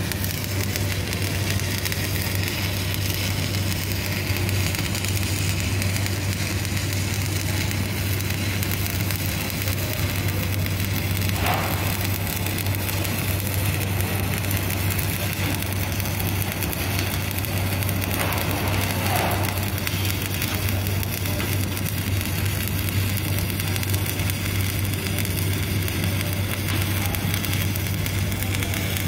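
Stick (shielded metal arc) welding arc burning with a wet electrode: a steady crackling sizzle over a low, even hum.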